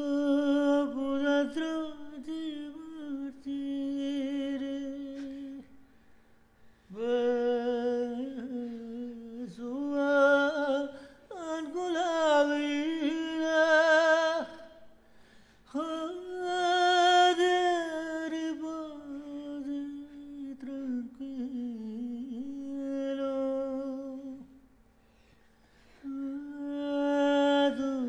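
A solo voice singing long, held, ornamented phrases with vibrato and sliding pitch over a steady drone note. The singing breaks off twice, about six seconds in and again about twenty-five seconds in.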